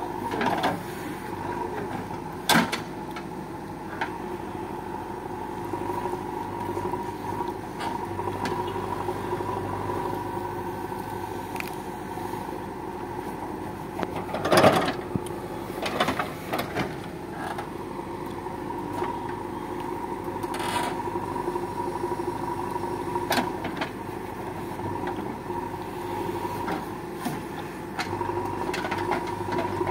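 JCB backhoe loader's diesel engine running steadily while the backhoe digs soil and tree roots, with scattered knocks and scrapes from the bucket. The loudest knocks come about halfway through, as the bucket lifts a root ball.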